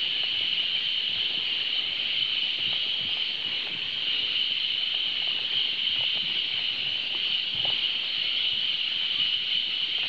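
Steady high-pitched drone of a rainforest insect chorus, unbroken, with faint footfalls on a wooden boardwalk underneath.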